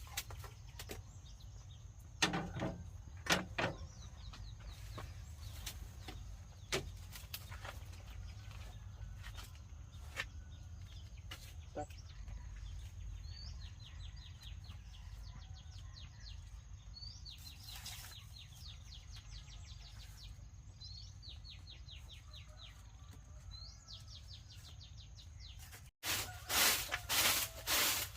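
Small birds calling outdoors: short rapid chirping trills repeated every second or two, over a steady high insect drone and low background noise, with scattered light knocks and a run of louder knocks near the end.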